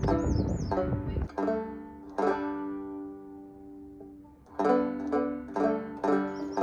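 Banjo music: plucked notes ringing out and fading, a pause of long-decaying notes in the middle, then a quick run of plucks near the end. A rush of noise sits under the first notes and stops about a second in.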